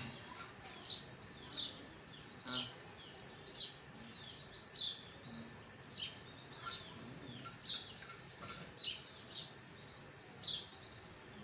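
Birds chirping: a steady run of short, high chirps that drop in pitch, about one or two a second, over faint background hiss.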